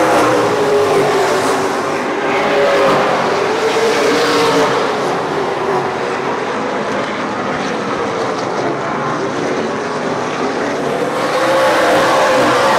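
Several Super 6 late model race cars running together on the track, their engines rising and falling in pitch. The engines are louder at the start and again near the end as the pack comes by.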